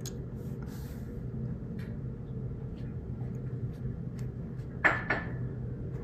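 Quiet bench work soldering a tiny push-button micro switch onto a key-fob circuit board: faint small ticks of handling over a steady low hum, with two brief louder scraping clicks about five seconds in.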